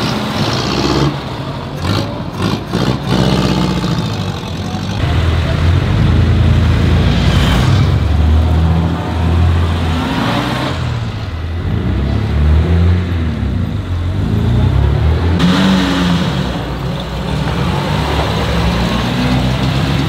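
Several vintage cars driving past one after another, their engines running and revving as they pull away, the engine pitch rising and falling several times.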